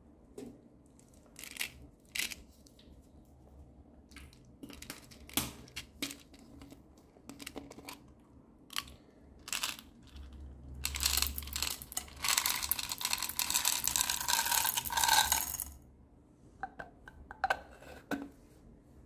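Small pink balls poured from a plastic container onto a tray of slime and gel balls: a dense rattling pour lasting about five seconds, starting about ten seconds in. Scattered clicks and taps of handling come before and after it.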